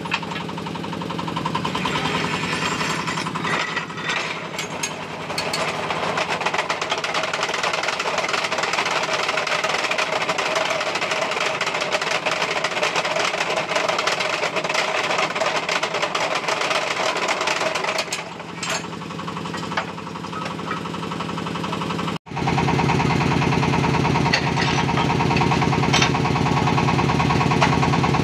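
Steel concrete-pole mould spinning on the drive wheels of a spun-concrete pole machine, a continuous rapid metallic rattle. After an abrupt break about 22 seconds in, the rattle comes back louder and deeper.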